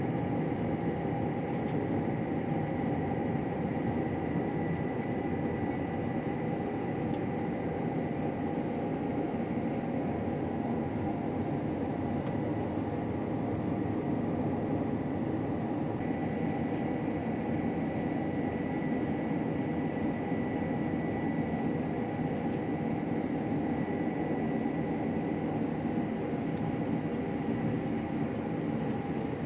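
Combine harvester running steadily while cutting wheat, heard from inside the cab: an even mechanical drone with a thin, steady high whine above it.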